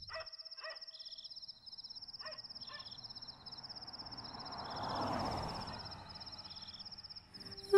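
Night ambience of insects trilling in a steady, high, finely pulsing note, with a few shorter trills at lower pitches. Several short chirps come in the first three seconds, and a soft rush of noise swells and fades about five seconds in.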